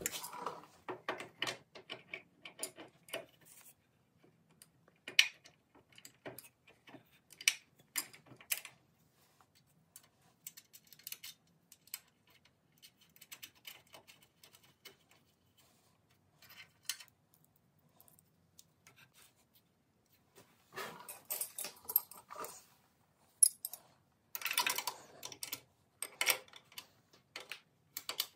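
Bolts, nuts and a wrench clicking and clinking against a steel bracket as a dual-chamber master cylinder is bolted into place. Scattered light metal clicks, with busier runs of clinking later on.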